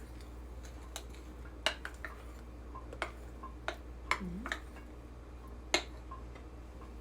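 A utensil clicking against a mixing bowl as cocoa is stirred slowly into pancake batter: several sharp, separate clinks spaced irregularly, over a steady low hum.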